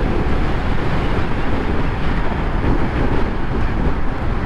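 Yamaha MT-15's 155 cc single-cylinder engine running through its stock exhaust while riding, mixed with steady wind rush on the microphone.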